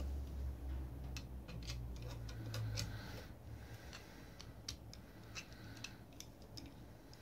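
Quiet, irregular light metallic clicks and ticks, a few a second: a stainless steel worm-drive hose clamp band being worked into its screw housing and started with a screwdriver so it gets a bite.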